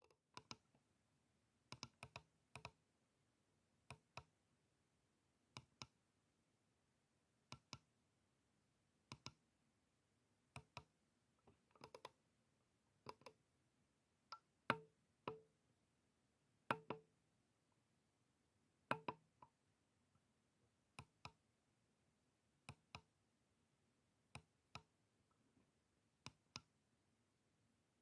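Slow computer mouse clicking: sharp clicks, mostly in close pairs, every second or two. A few around the middle are louder.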